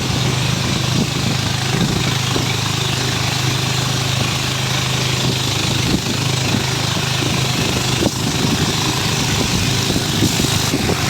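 Engine running steadily, a loud low drone with a rattle over it, and a short knock about eight seconds in.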